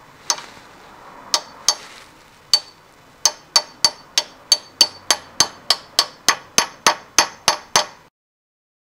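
Hammer tapping on a socket to drive a new bronze pilot bushing into its seat in the end of the crankshaft: a few scattered metallic taps, then a steady run of about three taps a second.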